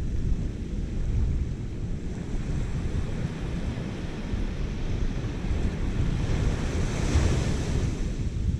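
Small ocean waves washing onto a sandy beach, with wind buffeting the microphone in a steady low rumble. One wash swells louder about seven seconds in.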